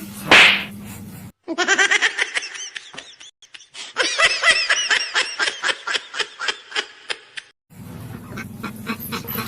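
An inserted laughing sound effect: two runs of rapid, pulsing laughter, cut in with its low end removed, after a short swish at the start.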